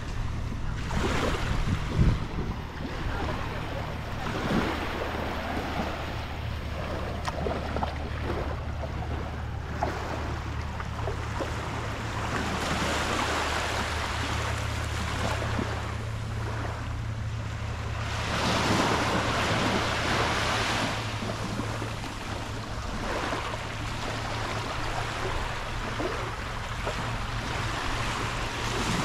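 Small sea waves washing onto a sandy beach, the wash swelling and easing every few seconds, with wind buffeting the microphone and a steady low hum underneath.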